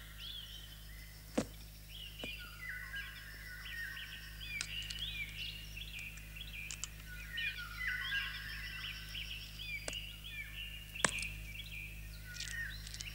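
Many small birds chirping in overlapping short calls, with two sharp clicks, one about a second in and one near the end.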